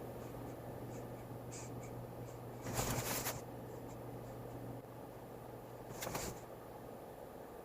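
Two brief soft rustles about three seconds apart, over a low steady hum that cuts out about five seconds in.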